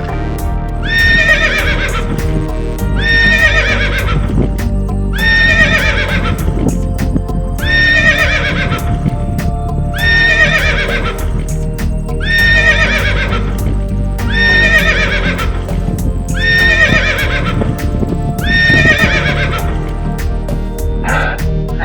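A horse whinnying, the same neigh repeated about ten times at roughly two-second intervals, over background music with a steady beat.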